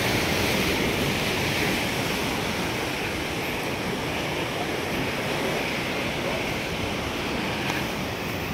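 Ocean surf breaking and washing over rocks at the foot of sea cliffs, heard as a steady, even rush of noise.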